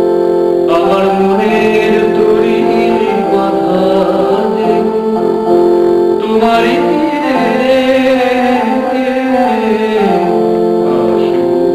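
A man singing to his own accompaniment on an electronic keyboard, which holds long sustained chords under his voice.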